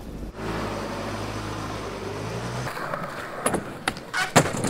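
Car engine running steadily as the car pulls away, cutting off suddenly after about two and a half seconds. Then come several sharp clacks of skateboards on concrete, the loudest near the end.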